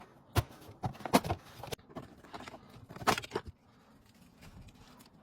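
A few sharp clicks and knocks of handling, the loudest about a second in and about three seconds in, then only faint background noise.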